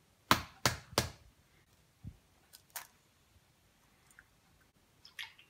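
An egg rapped three times against a granite countertop to crack it, sharp knocks about a third of a second apart, followed by a softer knock and a few faint clicks of the shell being broken open over the bowl.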